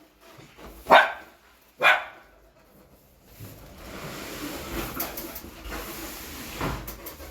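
A dog barking twice, single short barks about a second apart, followed by several seconds of lower steady background noise.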